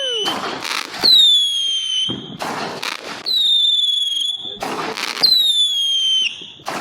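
Whistling fireworks firing in quick succession: a run of sharp bangs, about one a second. Three of the bangs come with a shrill whistle that slides a little down in pitch over about a second.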